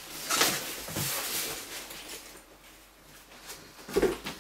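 Cardboard box and a padded nylon gig bag being handled as the bag is pulled out: rustling and scraping of fabric and card, with a soft thump about four seconds in.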